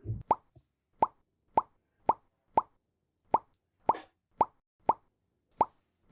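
A steady series of short, water-drop-like plops, about two a second, each a quick downward-sweeping pop; a brief low thump sounds at the very start and a softer rustle-like sound about four seconds in.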